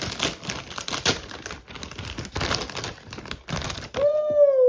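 A toy dinosaur's plastic pack crinkling and tearing as it is opened by hand. Near the end a child gives a drawn-out, falling "ooh".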